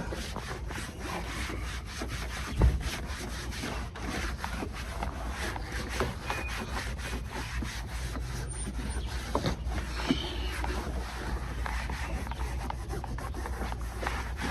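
Repeated scrubbing strokes on the car's interior during cleaning, a fast steady rasping rhythm over a low hum, with a single knock about two and a half seconds in.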